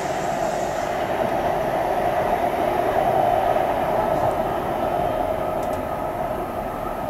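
Osaka Metro 400 series electric train pulling away, its Hitachi hybrid SiC VVVF inverter and traction motors whining steadily over the running noise of the wheels on the rails. The sound fades slightly as the train draws off, and a thin higher tone comes in near the end.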